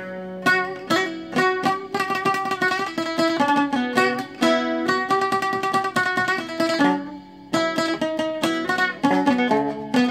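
Solo oud played with a plectrum: a melody of plucked notes, with stretches of fast tremolo picking on held notes.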